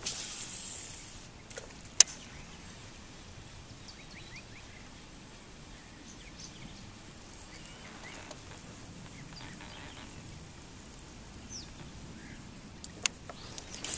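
Quiet lakeside outdoor ambience. There is a brief rush of noise at the start, a loud sharp knock about two seconds in, a few more knocks near the end, and faint bird chirps scattered through.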